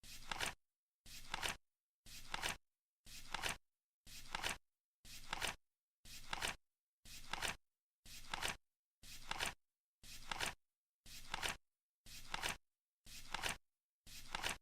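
Flip clock ticking over about once a second: each flip is a short rush that swells into a sharp double clack of the falling card flap, with silence between flips.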